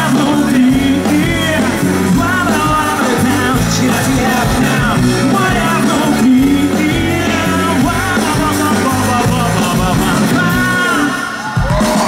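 Live rock band playing through a stage sound system, with a voice singing over guitar, bass and drums. The music drops back briefly near the end, then comes straight back in.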